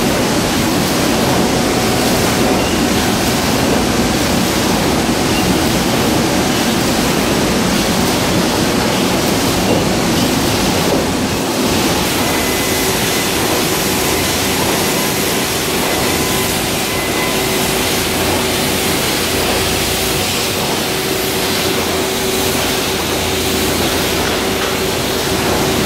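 Crabtree tinplate printing machine running: a loud, steady mechanical din of rollers and sheet feed. About halfway through, a steady low hum joins it.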